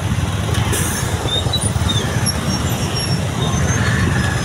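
Dense road traffic of motorcycles and buses: engines running with a steady low rumble, a short hiss about a second in, and a few brief faint high squeaks.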